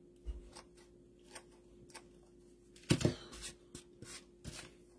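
Scissors snipping dry Spanish moss as it is trimmed along the edge of a wooden board: a few scattered short snips and clicks, with a louder knock about three seconds in.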